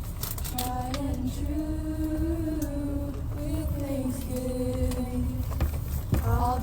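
A group of young girls singing a slow hymn together without accompaniment, holding long notes on a single melody, over the steady low rumble of the moving bus.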